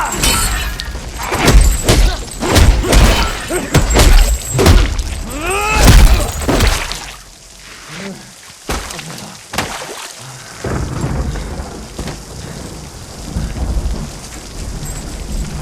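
Dubbed fight sound effects over steady rain: a rapid run of hard punch and body impacts mixed with short falling-pitch cries for about the first seven seconds. After that the impacts drop away and the rain carries on with a few softer hits.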